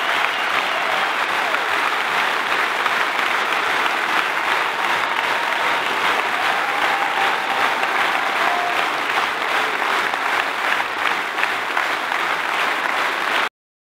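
A large audience applauding steadily, a dense crackle of many hands clapping, which cuts off suddenly near the end.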